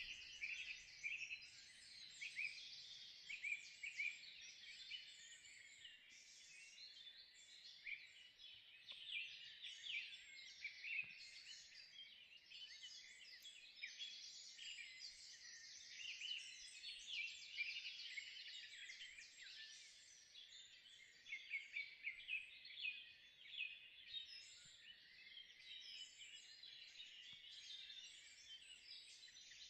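Many small birds singing and chirping together in a dense, continuous chorus of quick, high notes.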